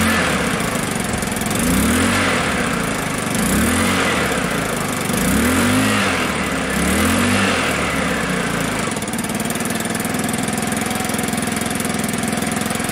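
125 cc scooter engine breathing through a newly fitted exhaust, revved in about five short throttle blips that rise and fall in pitch, then settling to a steady idle about eight seconds in.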